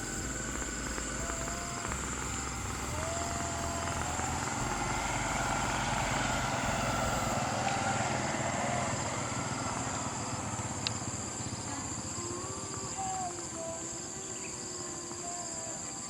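Insects giving a steady high-pitched drone, with scattered short sliding calls from other animals. A low rumble stops about halfway through, and a single sharp click comes about two-thirds of the way in.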